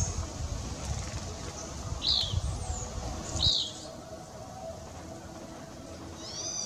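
Small songbird chirping: single high, downward-arching chirps about two seconds in and again a second and a half later, then a quick run of descending notes near the end. A low rumble sits under the first half and stops about halfway through.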